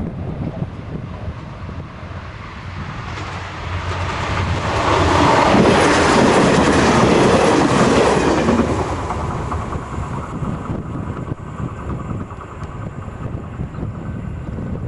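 A train passing the camera on an electrified main line. Its wheel and rail noise rises to a loud rush with a rapid clickety-clack from about five to eight seconds in, then fades away. Wind buffets the microphone throughout.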